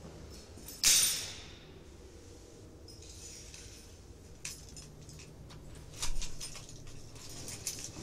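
A bunch of keys clatters onto a hard floor about a second in. They then jingle and clink in short runs as they are picked up and handled, loudest about six seconds in.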